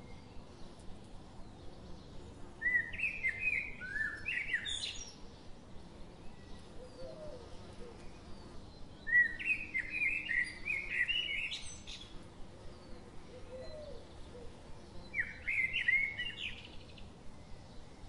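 A songbird singing three phrases of quick whistled notes that slide up and down, a few seconds apart.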